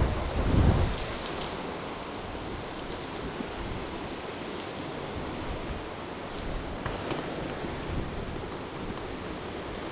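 Wind buffeting the microphone for about the first second, then a steady, even rush of flowing water with no change in level.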